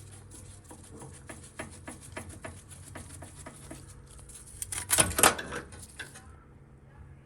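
Irregular light clicks and taps, like hard objects being handled, with a louder clatter about five seconds in.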